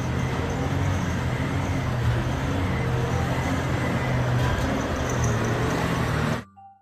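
Caterpillar 775E off-highway haul truck's diesel engine running as the truck drives slowly past, a steady low engine drone under a broad rush of noise; it cuts off suddenly near the end.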